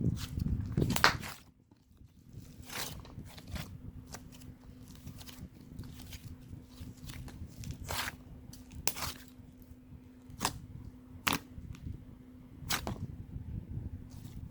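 Hands squeezing and poking play clay close to the microphone: dense handling noise for about the first second, then scattered sharp clicks and crackles every second or so. A steady low hum runs underneath.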